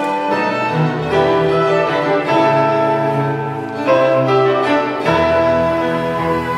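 Live instrumental music from a small ensemble, with no singing: a melody in long held notes over a sustained low bass line.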